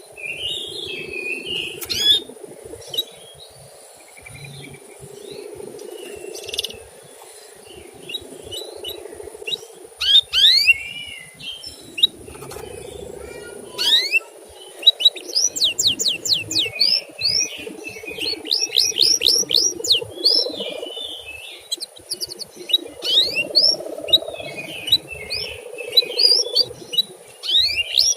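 Male canary calling with quick rising chirps, some single and some run together in rapid series, over a steady low hum.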